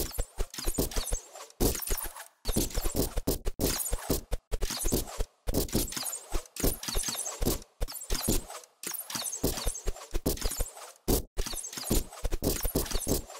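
Rapid, irregular thuds of arrows striking an archery target and the ground, coming in clusters with short gaps between them.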